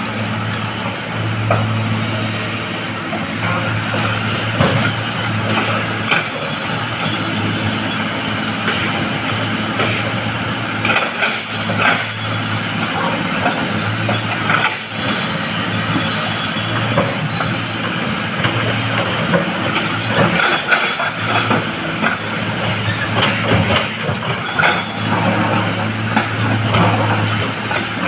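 Heavy diesel earthmoving machinery running steadily with a low engine drone, with scattered knocks and clanks throughout.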